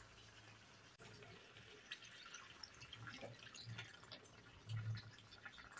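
Near silence: faint scattered ticks and small clicks over a low steady hum.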